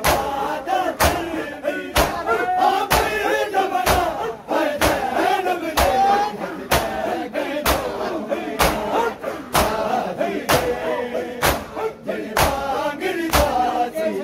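Matam: a large crowd of men beating their chests with open hands in unison, sharp slaps landing together at a steady beat of about one a second, while the men's voices chant the noha between the strokes.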